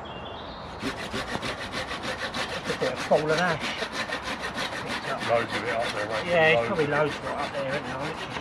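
Hand saw cutting through a fallen branch, in fast, even strokes of about five a second that start about a second in.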